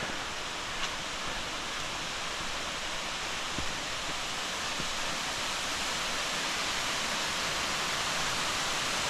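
Waterfall: a steady rush of falling water, growing slightly louder.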